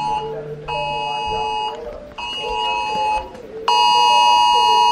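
Smartphone Wireless Emergency Alert tone sounding a tornado warning. A harsh, steady two-tone buzz comes in about one-second blasts with short gaps, then a longer, louder blast of about two seconds from near the end.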